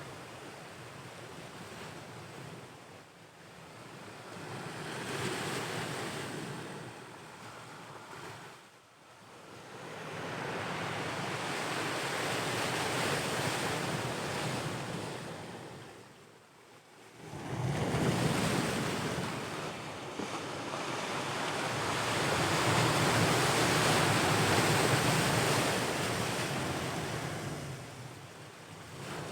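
Ocean surf: waves breaking and washing in, swelling and easing back in slow surges several seconds apart, with a sudden louder surge a little past halfway as a bigger wave breaks.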